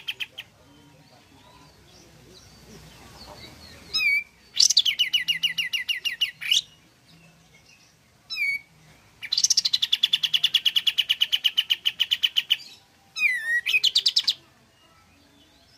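Kapas tembak bulbul singing in full voice. Each phrase is a short swooping note followed by a fast chattering run of repeated notes, about ten a second. There are three such phrases, the second and longest lasting over three seconds.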